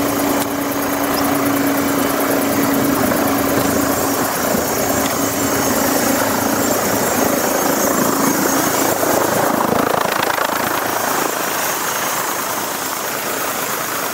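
Helicopter running: steady, loud rotor and engine noise, with a steady low hum that drops away about ten seconds in.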